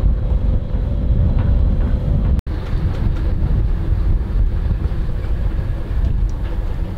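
Loud, steady low rumble of wind buffeting the microphone aboard a moving sailboat. The sound cuts out for an instant about two and a half seconds in.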